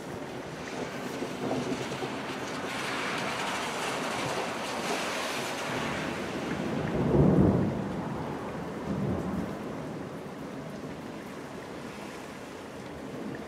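Steady rain falling, with a short low rumble of thunder about seven seconds in and a fainter one shortly after.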